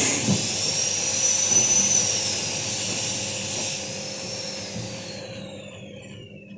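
A taro-processing machine's motor running down: its whir fades steadily, and a high whine falls in pitch over the last few seconds as it coasts to a stop.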